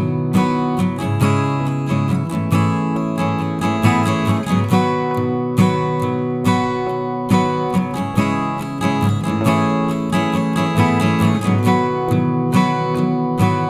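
Background music: a strummed and plucked acoustic guitar playing without vocals.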